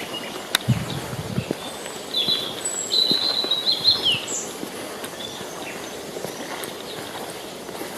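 Small birds chirping over the steady rush of a forest river, with a run of high chirps and a short falling note between about two and four and a half seconds in. A single sharp click sounds about half a second in.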